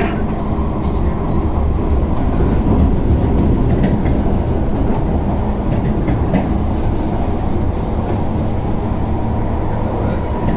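Kawasaki Heavy Industries C151 metro train heard from inside the carriage while running at speed: a steady rumble of wheels on rail with a steady hum, and a few light clicks from the track.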